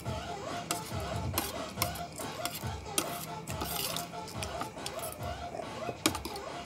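Metal spoon clinking and scraping against a plate of rice in irregular sharp clicks, with faint background music.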